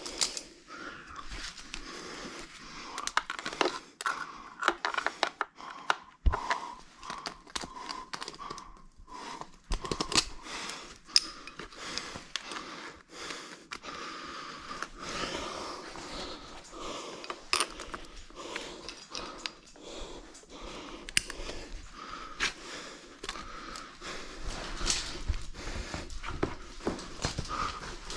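Close scraping and rustling of a climber's clothing and gear against the rock while squeezing up a chimney, with scattered clicks and knocks of hardware and some breathing.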